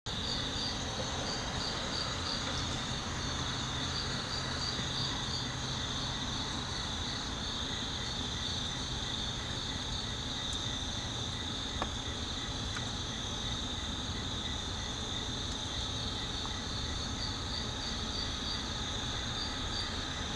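Night insects chirping in high, continuous, pulsing trills, over a faint steady low rumble.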